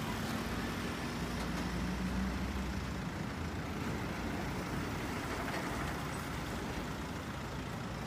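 Engine of a truck-mounted aerial work platform (bucket boom lift) running steadily while the boom is raised: a steady low hum under an even hiss.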